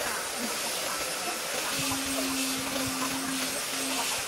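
Handheld power sanders running over large wooden slabs: a steady hiss of abrasive on wood, with a motor hum that comes in about two seconds in.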